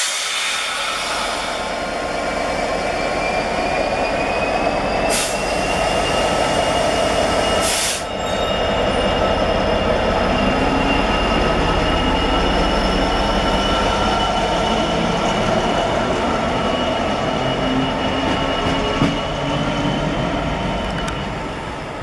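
Freightliner Class 66 diesel locomotive passing close by at low speed, its EMD two-stroke diesel engine running, with a steady high squeal from the wheels on the rails that slowly shifts in pitch.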